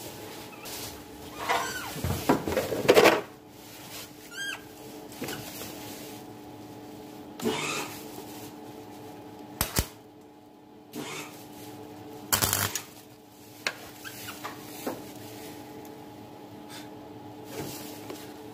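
Short bursts of welding on a thin throttle cable, mixed with knocks and clatter of handling, over a steady low hum. The cable melts through instead of joining.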